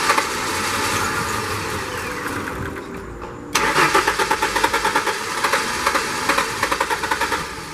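A 1994–98 Ford Mustang's starter cranking the engine in two goes, a steady rapid pulsing from each compression stroke; the second go begins about three and a half seconds in. The engine cranks but does not start, even with ether sprayed in.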